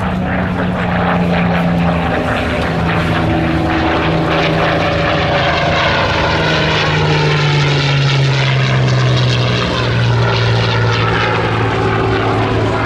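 Propeller warbird with Rolls-Royce Merlin piston engines flying past with a steady, loud drone. The engine note drops in pitch a little past halfway as it passes.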